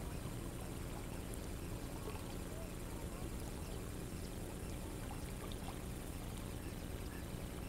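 Calm river water trickling and lapping around an inflatable kayak, over a steady low rumble, with a few faint short ticks and chirps.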